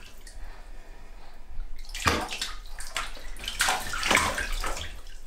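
Water sloshing and splashing in a baby bath. It is quiet at first, then there is a run of splashes starting about two seconds in.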